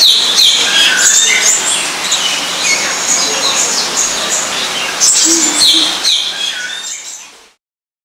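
Aviary ambience: many birds chirping and whistling over one another in short, high calls, fading out near the end.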